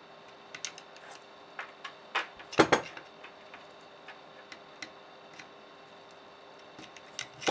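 Flat-blade screwdriver prying between the skirt and the can of a Turnigy RotoMax 50cc brushless motor, working the skirt loose. It gives scattered metal clicks and scrapes, with the loudest cluster a little under three seconds in.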